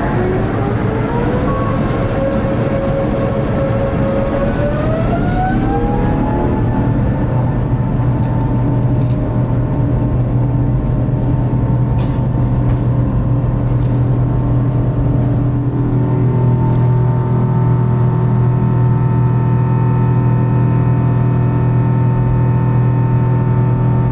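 The Airbus A350-900's two Rolls-Royce Trent XWB turbofans, heard from inside the cabin, spooling up to takeoff thrust. The engine whine rises in two steps over the first seven seconds, then holds steady over a strong low drone.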